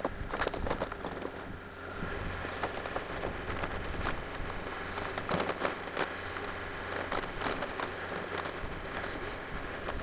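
Compact excavator engine running steadily while it handles a bundle of birch logs, with repeated cracking and clattering of logs and branches knocking together.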